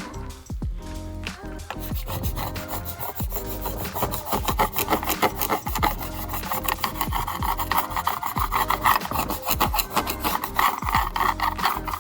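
Small bladed hand scraper scraping old cured Sikaflex sealant off a boat's cabin-side window opening, in rapid short strokes that start about two seconds in and get louder and denser about four seconds in.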